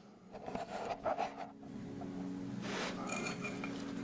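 Faint scraping and rubbing of a metal tool in the rusted, fatigued lower fold of a steel car door skin: a few short, irregular scrapes in the first second and a half, then a faint steady hum.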